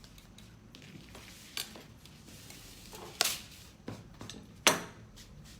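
Craft materials and tools being handled on a work table: a few sharp clinks and knocks, the loudest about three seconds in and again near the end.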